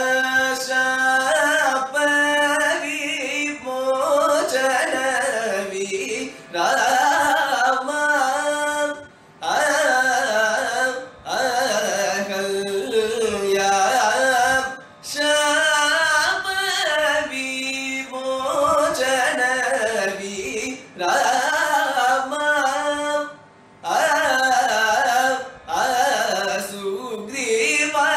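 Carnatic vocal music in raga Dharmavathi: a male singer's long gliding, ornamented phrases, broken by brief pauses every few seconds.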